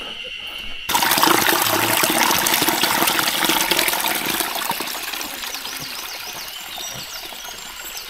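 Small mountain stream trickling and splashing over mossy rocks, cutting in abruptly about a second in and slowly fading toward the end. Before it, a steady high-pitched drone.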